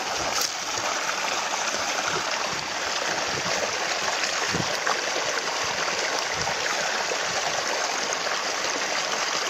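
Water gushing steadily from a plastic inflow pipe into a pond, splashing into the pool below the outlet.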